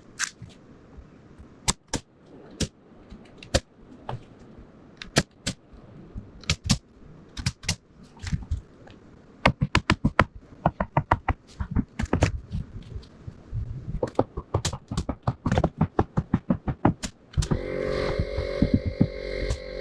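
Irregular sharp knocks and clacks from wall-framing work on wood, in quick runs in places. Background music comes in near the end.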